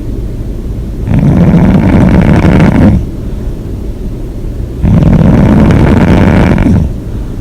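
A person snoring loudly, two long snores about four seconds apart, each lasting about two seconds, with a quieter stretch of low breathing between them.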